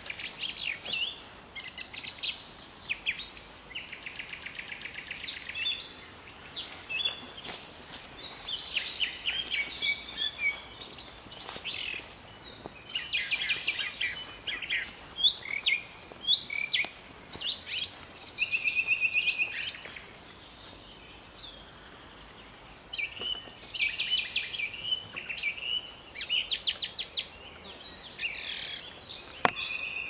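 Nightingale singing: varied phrases of fast repeated notes and trills, broken by short pauses, with other birds calling among them.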